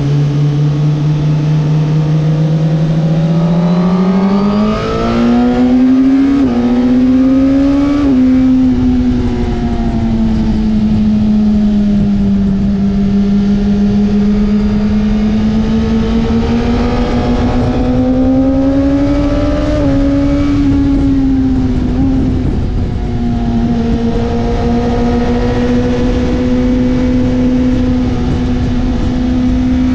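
Suzuki GSX-R1000R's inline-four engine at speed, revving up with two quick upshifts a few seconds in. It then sinks and builds again and holds fairly steady near the end, over a steady rush of wind noise.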